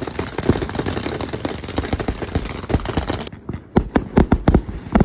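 Professional firework cakes firing: a dense, rapid volley of shell launches over a constant crackle, a brief lull just past the middle, then a quick string of separate launches, several a second.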